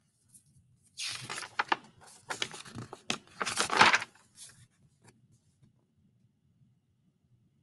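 Paper pages of a hardcover picture book being flipped, a rustling flutter with several sharp page snaps for about three seconds, starting about a second in, followed by a couple of faint rustles.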